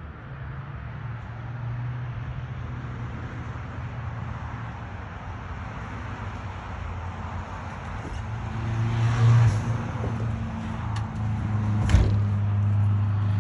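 An engine running with a steady low hum that grows louder about eight to nine seconds in, with one sharp knock about twelve seconds in.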